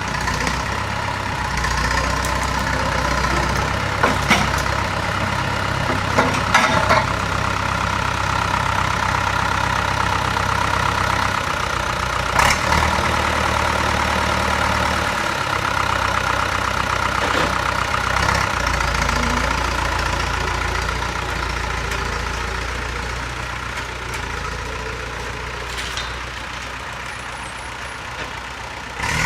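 A heavy engine idling steadily, its note shifting a few times, with a few sharp metallic knocks in the first half.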